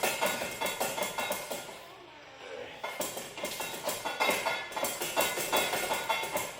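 Rapid mechanical clattering and clicking in two runs, with a short lull about two seconds in.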